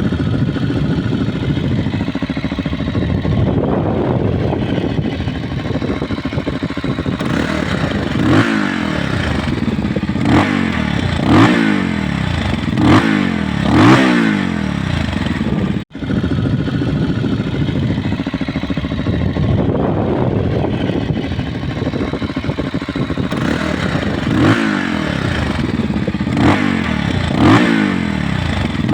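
SWM Six motorcycle engine on its stock exhaust, idling and then blipped five times in quick succession, each rev rising and falling in pitch. The sound cuts out for an instant midway, and the same idle and run of revs follows again.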